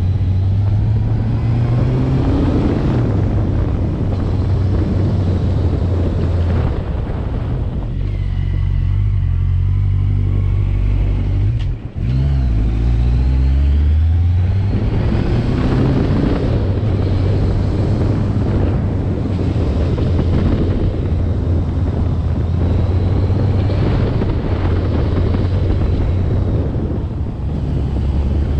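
A motor vehicle's engine running under way, with rushing noise over it. The engine note shifts several times, dropping low for a few seconds before a brief break with a click about a third of the way through, then picking up again.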